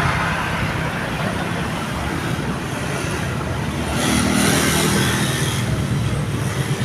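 A bus running past with engine and road noise, the telolet horn now silent; about four seconds in, a hiss swells for a second and a half, then eases.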